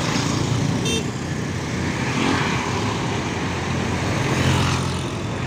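Slow, heavy traffic: bus and motorcycle engines running as they crawl past. The low rumble builds as a Harapan Jaya intercity coach draws close, about four seconds in. A brief high beep sounds about a second in.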